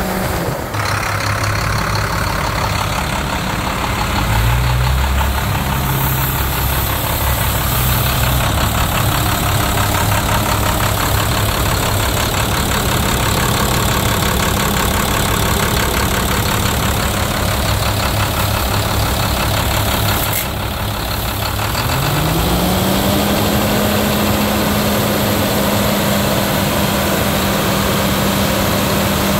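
2013 International DT466 (MaxxForce DT 7.6 L) turbo-diesel engine idling steadily. About three quarters of the way through, the engine speed rises smoothly and holds at a higher, fast-idle speed.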